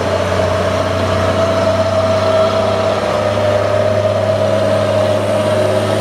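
Mitsubishi box truck's diesel engine running steadily: a low hum with a steady higher tone above it. The sound starts and stops abruptly.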